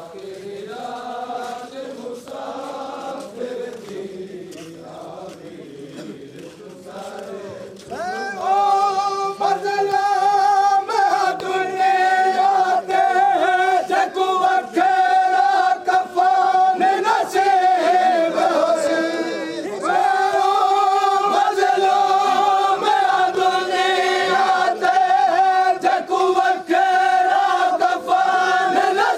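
A group of male mourners chanting a Punjabi noha (Shia lament for Karbala) with long held notes, with the sharp slaps of hands beating on chests (matam) in between. The chant is quieter and uneven at first, then about eight seconds in a louder group voice takes over.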